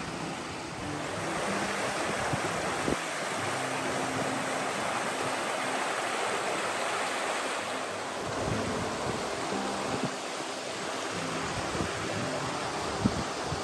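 Mountain stream running steadily over rocks.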